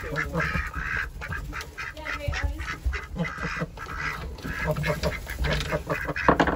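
Several domestic ducks quacking, a dense stream of short overlapping calls.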